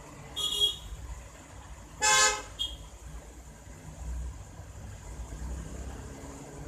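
Car horn tooting twice, briefly at first and then a longer, louder honk about a second and a half later, followed by a short blip. A low steady hum runs underneath.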